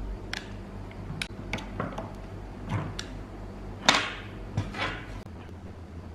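Irregular clicks and knocks of small hard objects being handled, the loudest a little before four seconds in, over a low steady hum that stops a little after five seconds in.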